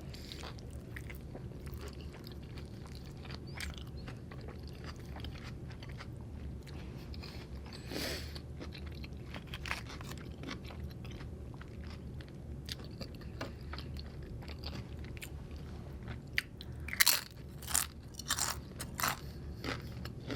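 Close-miked chewing and biting of a burrito and tortilla chips, with small wet mouth clicks throughout. There is a louder crunch about eight seconds in and a run of sharper crunches near the end.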